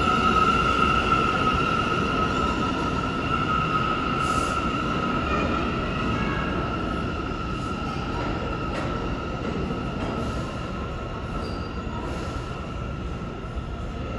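New York City Subway A train pulling out of the station, its wheels squealing on the rails in a steady high ring over the rumble of the cars. The sound fades slowly as the train recedes.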